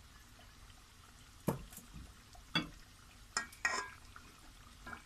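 Kitchen utensils knocking and scraping against a bowl and an aluminium cooking pot of thick mutton korma, four short sharp knocks starting about a second and a half in.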